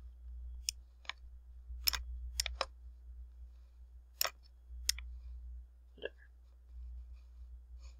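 Computer mouse button clicking, about eight short, sharp clicks at uneven intervals as lines are clicked, dragged and bent in a paint program, over a low steady hum.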